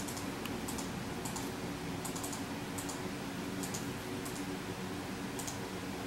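Computer keyboard keys pressed in scattered, irregular clicks over the steady hum of a running desktop PC.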